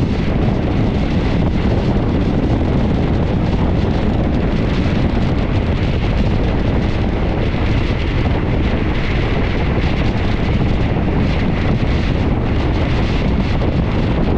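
Wind buffeting the microphone at the open window of a moving train, over the train's steady running noise on the rails.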